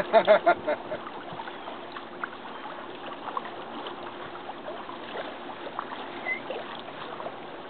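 Water washing and trickling along a boat's hull as it moves, with a faint steady hum underneath and scattered small splashes.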